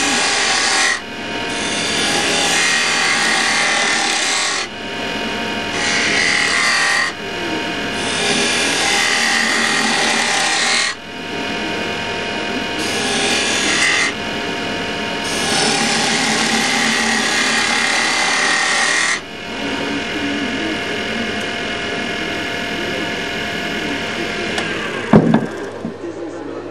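Abrasive strip pressed against a wooden candlestick spinning on an Axminster wood lathe: a loud rasping scrape in repeated strokes with short breaks, over the steady hum of the lathe. The scraping eases off after about two-thirds of the way through, and a single sharp knock comes near the end.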